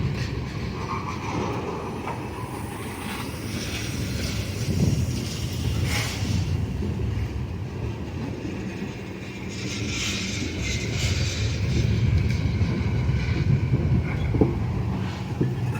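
Freight train rolling along, a steady low rumble with rattling and a few sharp knocks from the railcars.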